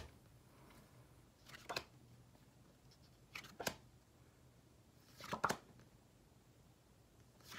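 Faint swishes of cardstock flashcards being slid off the front of a stack and onto the back, three times about two seconds apart.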